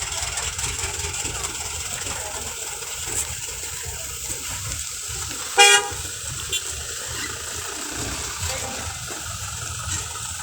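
A vehicle horn gives one short toot about halfway through, over a steady low rumble of engines and background noise.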